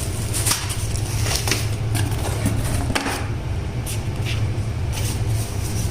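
Scattered light clicks and rustles of packaging and parts being handled while a microwave is unboxed, over a steady low hum.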